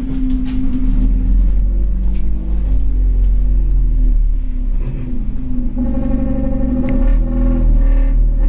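Scania OmniCity N230UD double-decker bus's diesel engine running under way, heard from the upper deck: a steady low rumble whose note rises and falls with the throttle, with a higher whining tone joining in about six seconds in.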